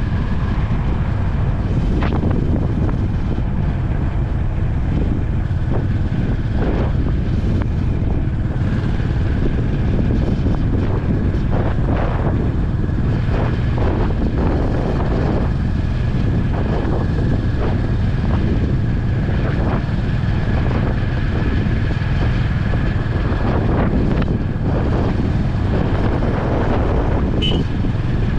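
Steady wind rushing over the microphone of a motorcycle cruising at highway speed, over the low, even drone of the Honda CB350's single-cylinder engine.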